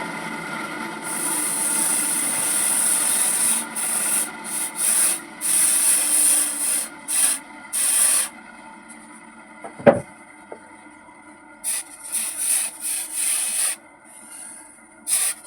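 Repeated abrasive sanding strokes, each lasting from a fraction of a second to a couple of seconds with short gaps between, over a steady low hum. One sharp knock comes about ten seconds in.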